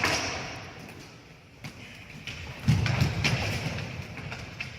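Thuds and knocks of ball hockey play, a handful of sharp hits with the loudest a heavy thud about two and a half seconds in.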